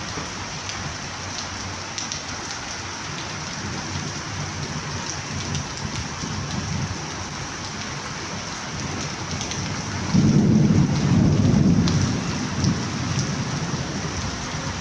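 Steady rain falling and pattering on surfaces. About ten seconds in, a louder low rumble swells for about two seconds, then eases back under the rain.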